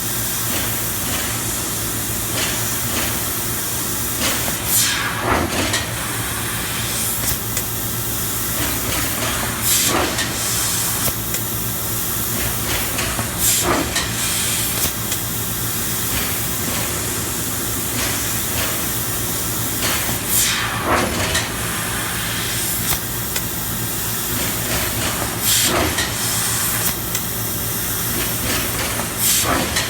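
Mazak Super Turbo X48 Hi-Pro 2000-watt CO2 laser cutting machine running: a steady hiss over a low hum, broken by several brief sharp bursts every few seconds.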